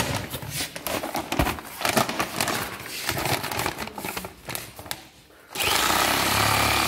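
Kraft-paper flour sack rustling and crinkling as its top is folded and held. About five and a half seconds in, a handheld bag-closing sewing machine starts with a sudden loud, steady run as it stitches the sack shut.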